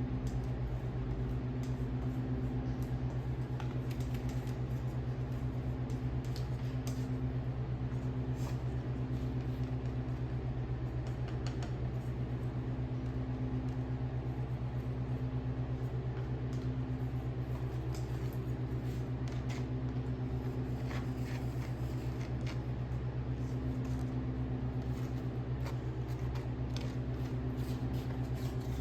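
Sawmill engine running steadily at a constant speed, with scattered faint clicks.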